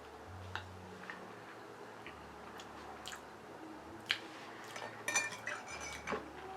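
A person chewing egg close to the microphone: soft, wet mouth sounds with scattered small clicks, a sharp click about four seconds in and a cluster of clicks a little after five seconds.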